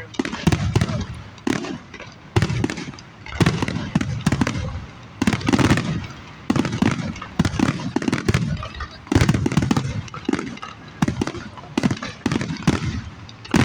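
Aerial fireworks going off one after another, about one boom a second, each followed by a low rumble and crackle.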